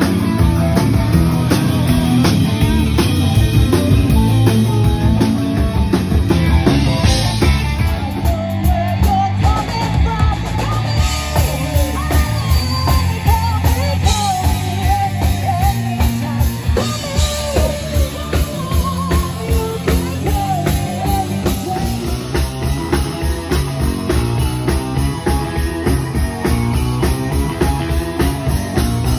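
Live rock band playing: electric guitars, bass guitar and drum kit, with a woman singing lead from about eight seconds in until about two-thirds of the way through.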